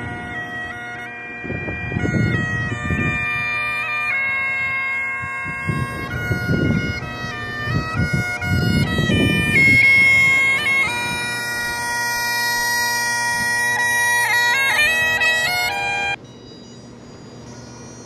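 Bagpipes playing: steady drones under a shifting chanter melody. The pipes stop abruptly near the end, leaving only faint background noise, and intermittent low rumbles come through along the way.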